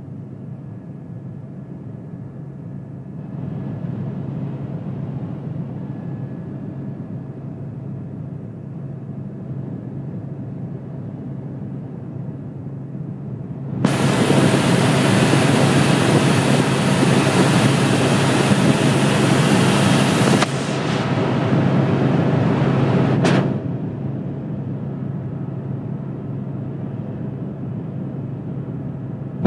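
Helicopter cabin noise in flight: a steady low drone from the rotor and engine. About halfway through, a much louder rushing noise comes in for several seconds and then cuts off suddenly.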